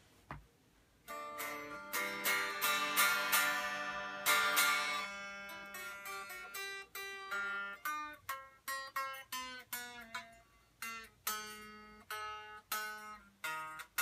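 Unplugged Line 6 James Tyler Variax JTV-59 electric guitar played acoustically, its bare strings only: after about a second of quiet, a few strummed chords, then single notes picked one after another, two or three a second.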